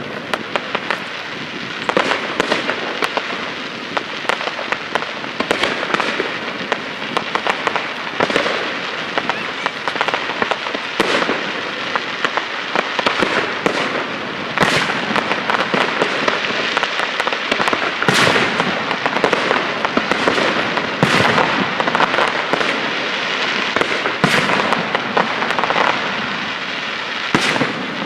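Fireworks display: aerial shells bursting in a dense, continuous run of bangs and crackling, with a louder single bang about every three seconds.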